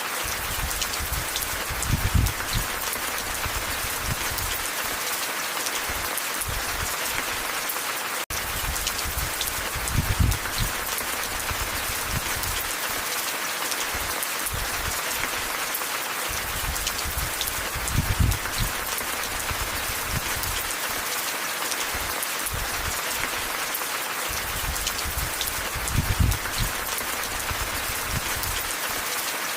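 Steady rain falling, a dense even hiss. A soft low thump rises out of it about every eight seconds, four times in all, and the sound drops out for an instant about eight seconds in.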